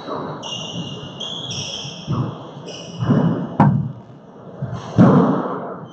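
Handball rally in an enclosed four-wall court: the rubber ball smacks off hands and walls with thuds that ring in the court, a sharp crack about three and a half seconds in and the loudest thud near the end. Sneakers squeak on the hardwood floor.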